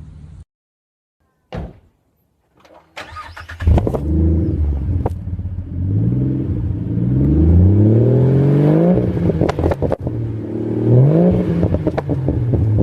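Turbocharged Ford Barra 4.0-litre straight-six being revved, its pitch climbing and dropping back several times, with a few sharp pops. The engine comes in loud after about three seconds of near silence.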